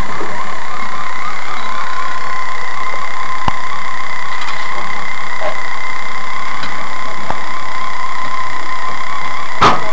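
Swamp tour boat's engine idling with a steady hum. A few faint clicks are heard, and a sharp knock comes near the end.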